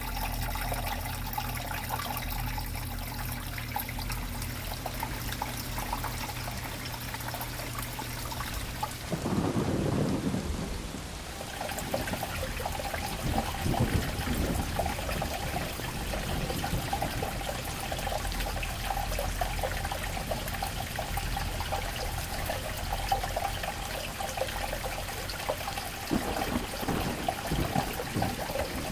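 Steady splashing of running water, with a low rumble about nine seconds in.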